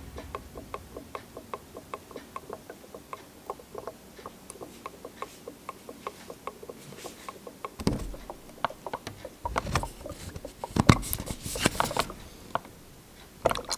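Ink bottle glugging as ink drains into a Brother ink-tank printer's tank: a steady run of small clicks, about four a second, as air bubbles back into the bottle. From about eight seconds in come louder knocks and crackles of the plastic bottle being handled and squeezed to speed the flow.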